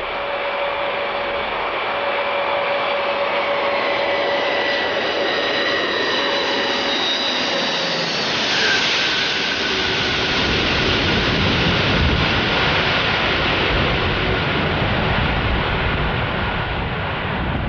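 Jet aircraft engines running loud: steady jet noise with whining tones that slowly fall in pitch. About halfway through, the sound turns into a broader, deeper rush with more low rumble, as of the aircraft passing by.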